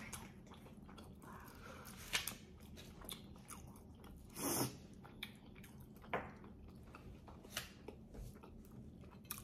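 Faint close-up mouth sounds of someone chewing chicken, with scattered small crunches and clicks and a louder noisy burst about four and a half seconds in.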